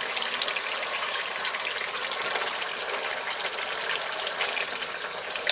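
Thick asam pedas curry sauce boiling in a wok, a steady bubbling with many small pops and crackles, as a wooden spatula stirs brinjals into it.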